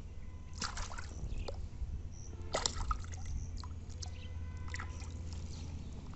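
Hands sloshing and splashing through shallow muddy water while groping for fish, with irregular wet splashes and squelches; the loudest comes about two and a half seconds in.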